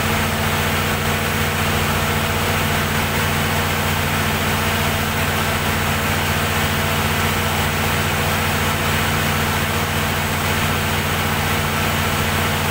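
Perkins diesel generator set running at a steady speed, an even low engine hum that does not change.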